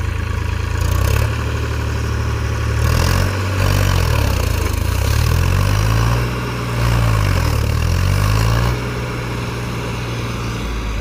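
Massey Ferguson tractor's diesel engine running under load, its pitch swinging up and down twice as it is revved, then settling a little lower near the end.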